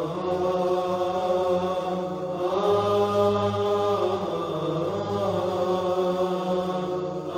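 Background vocal chanting: slow, long held sung notes that step to a new pitch every second or two, without instruments.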